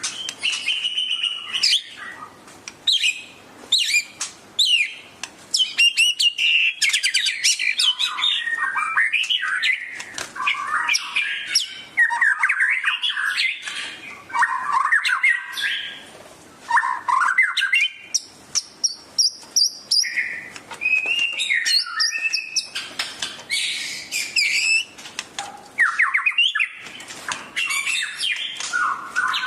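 White-rumped shama (murai batu) in full, excited song: a continuous run of varied loud whistles, fast trills and sharp clicking notes, broken by short pauses between phrases.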